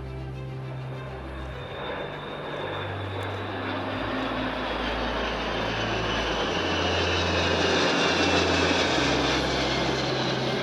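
Kawasaki C-1 transport's twin turbofan engines passing overhead, growing louder to a peak about eight seconds in, with a high whine that falls in pitch as it goes by.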